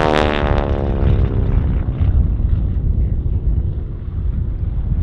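North American Harvard's Pratt & Whitney R-1340 radial engine and propeller droning as the aircraft flies its aerobatic display, the pitch falling over the first two seconds and loudest right at the start. After that comes a steadier, lower rumble.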